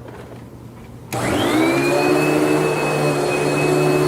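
Vacuum cleaner switching on about a second in, its motor whine rising in pitch as it spins up, then running steadily with a hum underneath.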